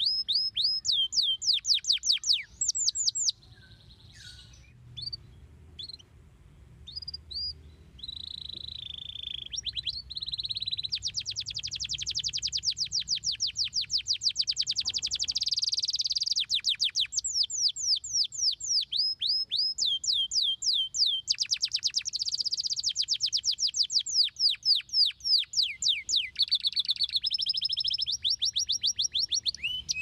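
Domestic canary singing: fast trills of repeated falling notes. About three seconds in it drops to a few scattered notes for several seconds, then breaks into long, very rapid rolling trills.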